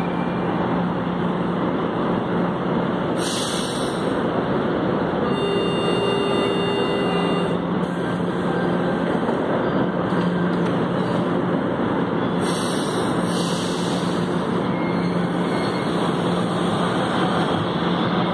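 A São Paulo Metro K-fleet train standing at the platform, running with a steady hum. Short hisses of air come twice, and a steady warning tone sounds for a couple of seconds about a third of the way in, as the doors close. Near the end the train starts to pull away.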